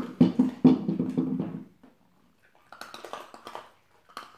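Hollow plastic dog toy knocked about on a wooden floor: a quick run of clattering knocks with a hollow ring for the first second and a half or so, then a few fainter clicks and scuffs near the end.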